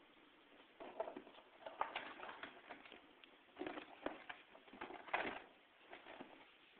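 Faint sounds from inside a guinea pig's cage: four or five short, soft bursts about a second apart, mixing rustles of the bedding with low cooing-like sounds.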